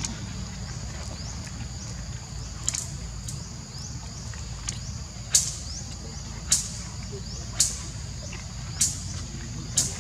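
Outdoor wildlife ambience: a steady high-pitched drone with short, sharp rising chirps repeating about once a second, growing louder about halfway through, over a low rumble.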